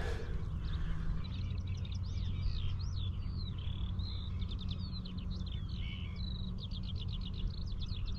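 A songbird singing a varied run of quick chirps, whistled glides and fast trills, over a steady low rumble.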